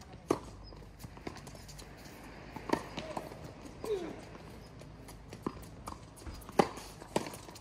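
Tennis racquets striking the ball and the ball bouncing on a hard court during a doubles rally: sharp pops a second or so apart, the loudest near the end, with a brief voice about four seconds in.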